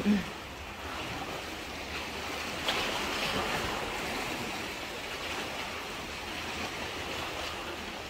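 Calm sea washing steadily against the rocks of a breakwater, with a small tick a little under three seconds in.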